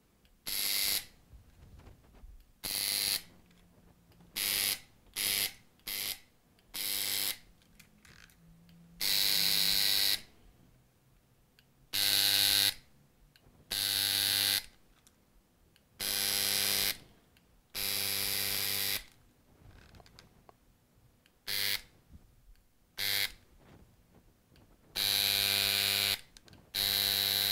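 Vintage Soviet mains-powered electric gas-stove lighter arcing across its spark gap in repeated bursts, about fifteen times. Each burst is a harsh buzz with a hissing crackle and lasts from a fraction of a second to about a second.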